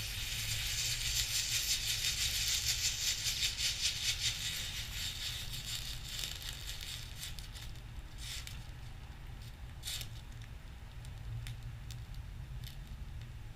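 A fierce burning reaction hissing and crackling, loudest at the start and dying down over several seconds, then scattered sharp pops and crackles.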